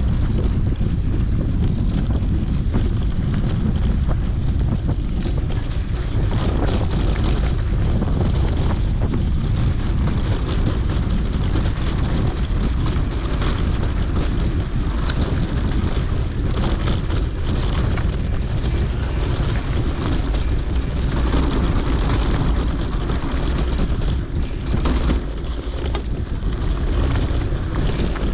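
Wind rushing over a GoPro microphone on a moving mountain bike, a steady low rumble, with scattered clicks and rattles from the bike on the dirt track.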